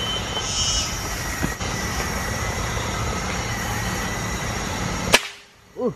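A steady hiss of background noise, then about five seconds in a single sharp gunshot at a tree squirrel, after which the hiss drops away abruptly; a short voiced exclamation follows near the end.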